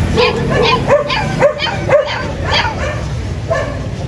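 Husky vocalizing in a run of short calls, about two a second, each bending up and then down in pitch.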